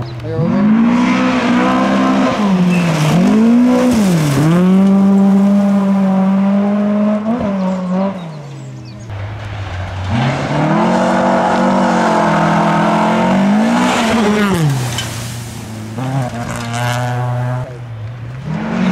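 Rally car engines driven hard on a gravel stage, two cars one after the other, their pitch repeatedly climbing and dropping as the drivers rev and lift. There is a short lull between the two about eight seconds in.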